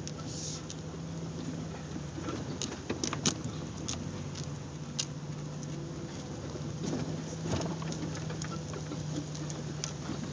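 Off-road vehicle engine running low and steady, with scattered light clicks and taps over it.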